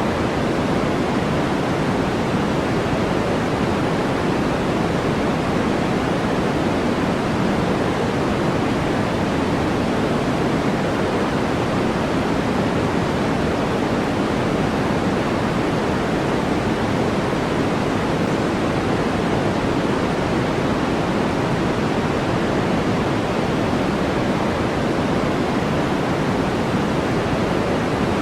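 Steady generated noise from a sleep-noise track: an even, unchanging hiss with most of its weight in the lower and middle pitches, softer in the highs, closer to pink noise than pure white noise.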